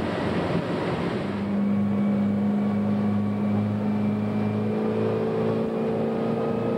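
Motorboat engine running steadily at towing speed, a constant low hum, over the rush of water and wind, which is heavier for about the first second.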